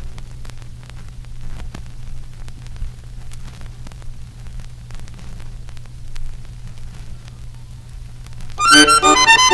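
Vinyl record surface noise in the run-out between songs: scattered crackle and clicks over a steady low hum. An accordion tune starts about nine seconds in.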